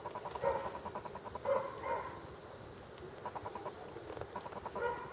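Domestic cat meowing: several short calls, loudest in the first two seconds and again near the end, with quicker pulsing trills in between.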